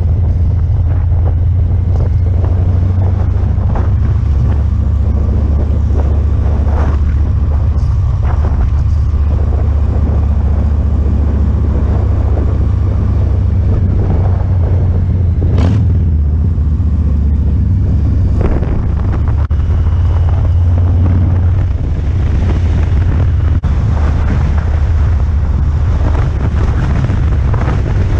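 Harley-Davidson motorcycle's V-twin engine running on the move, a steady low rumble, with wind buffeting the helmet-mounted microphone.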